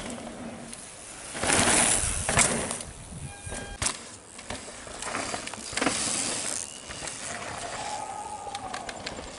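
Downhill mountain bikes going past on a loose gravel track: their tyres skid and crunch through the dirt in a loud rush about a second and a half in, and again around five to six seconds in.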